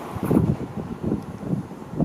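Wind buffeting the microphone in irregular low gusts, loudest about a third of a second in and again near the end.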